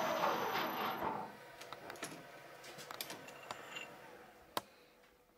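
Metal lathe spinning down after being switched off, its running noise fading with a whine that falls in pitch over about a second. Then scattered small clicks and knocks as the workpiece is handled, one sharper click near the end.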